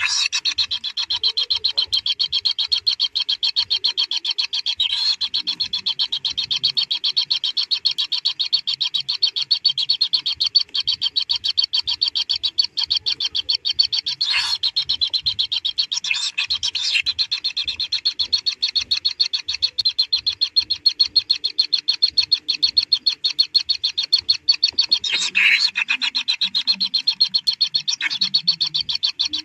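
Kingfisher nestlings begging in the nest burrow: a continuous high, rapid ticking buzz, with a few louder flare-ups scattered through it.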